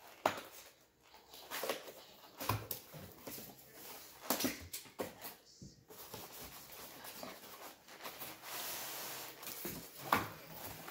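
Cardboard model box being handled and opened on a glass tabletop. Scattered taps and knocks as the box is shifted, the lid flap scrapes open, and a longer sliding rustle comes about eight seconds in.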